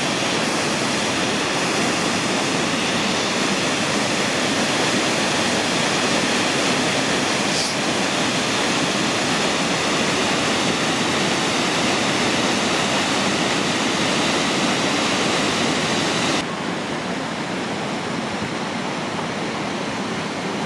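Waterfall, water rushing steadily. About sixteen seconds in the sound drops a little and loses its high hiss.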